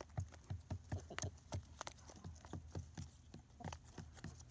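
Hens pecking at wet gruel in a hand-held plastic tub, their beaks tapping the food and the container in quick, irregular taps, about four or five a second.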